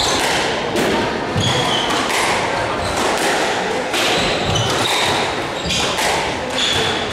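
Squash rally: the rubber ball cracking off rackets and thudding against the court walls, about once a second, with short high squeaks of shoes on the wooden floor between the shots.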